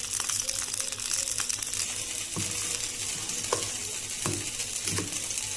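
Hot ghee with fried cashews and raisins poured into a pot of thick rice-milk payasam, sizzling with a steady hiss. A steel spoon then stirs it, knocking against the pot a few times in the second half.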